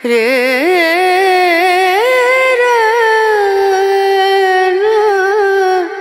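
A single voice singing a Hindi romantic song phrase: it starts suddenly with quick, wavering ornaments, then settles into one long held note that drops away near the end, with little accompaniment under it.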